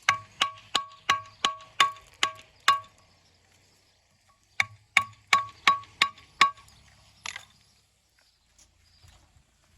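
Walling hammer blows dressing stone for a dry stone wall, each strike leaving a short metallic ring: eight quick blows, a pause of about two seconds, then six more, followed by a brief scrape.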